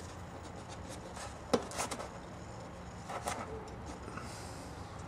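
A few small clicks and taps of metal parts being handled while a nut is worked into place on a Victor electric phonograph motor's speed regulator. The sharpest click comes about a second and a half in, and all of it sits over a faint steady low hum.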